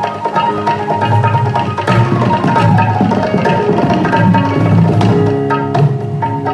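Dholak drumming in a fast, dense rhythm over music with held melodic notes.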